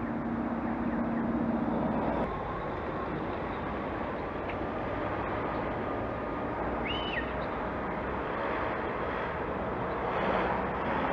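Steady rushing noise of a bicycle ride along a city street: wind and road noise with motor traffic. A low steady hum in the first two seconds stops abruptly, and a short high chirp comes about seven seconds in.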